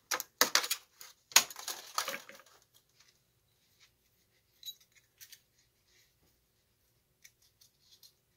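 Thin brass foil crinkling and rustling as it is handled, loud for the first two and a half seconds, then a few faint, scattered metallic clicks as small brass lamp-socket parts are fitted together by hand.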